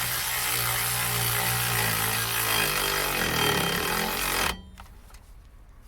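Cordless power tool running steadily for about four and a half seconds while driving in a brake caliper carrier bolt. Its motor note wavers and sags in the last second or so, then it stops abruptly. The battery might be dying.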